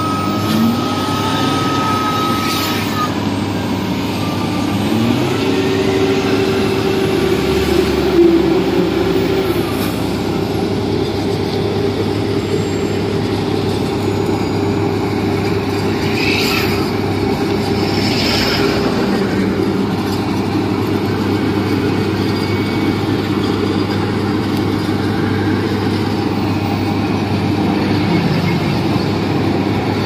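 Heavy vehicle engine running steadily, with a few short hisses near the start and around the middle.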